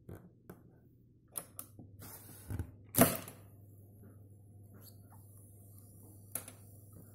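TEAC A-2300SR open-reel tape deck being operated: several sharp clicks of its transport buttons, then one loud mechanical clunk about three seconds in as the transport engages. After it the deck runs with a steady low hum and tape hiss, with another single click near the end.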